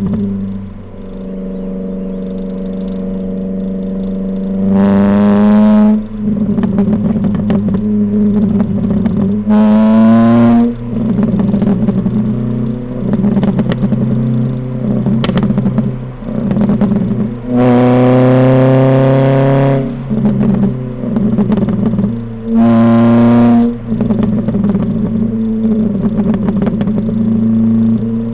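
Ford Fiesta ST150's modified exhaust on a drive: the four-cylinder engine pulls hard four times, rising in pitch each time. Between the pulls, on lift-off, the exhaust pops and crackles in rapid strings.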